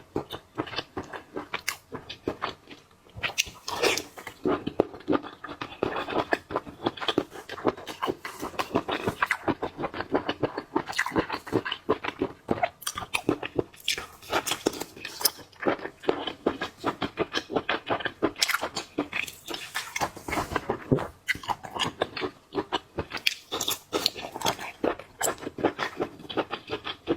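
Close-miked chewing and crunching of seafood: a dense, uneven run of wet crackles and sharp clicks, with short pauses between mouthfuls.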